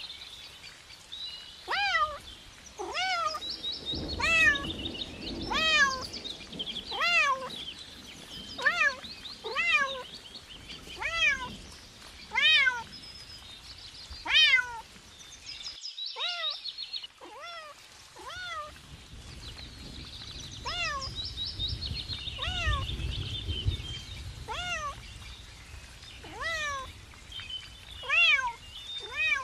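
A kitten meowing over and over, short rising-and-falling meows about once every second or so, with a pause of a couple of seconds midway. Under the meows, chicks cheep in quick high peeps.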